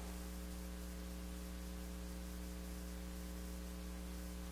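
Steady electrical mains hum with a faint hiss underneath, unchanging throughout.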